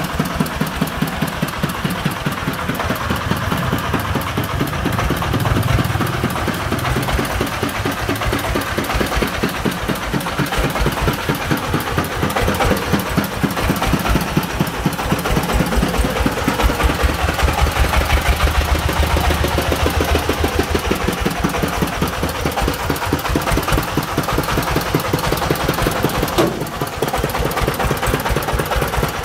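Single-cylinder diesel engine of a công nông three-wheeled farm truck running at low speed while the loaded vehicle is driven, with a fast, even beat of firing strokes. It dips briefly near the end.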